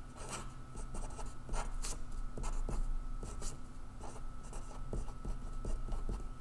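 Marker writing on paper: a run of short, uneven scratchy strokes as letters are written and lines drawn.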